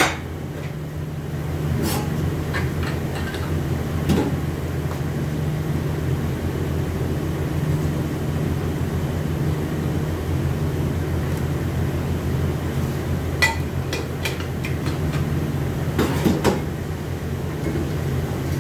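Steady machine hum of a shop motor running, with a few metallic clanks as steel automatic-transmission parts such as a clutch drum are handled and set down on a steel grate.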